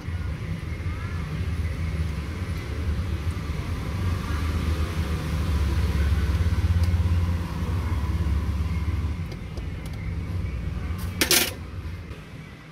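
A motor vehicle's engine running close by, a low rumble that swells to its loudest about halfway through and fades after about nine seconds. A single sharp knock comes near the end.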